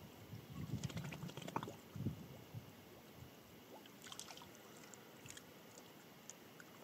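Faint splashing and trickling of water as a hiker's hands scoop or fill from a small, shallow pool, in scattered small bursts, most in the first two seconds and again about four seconds in.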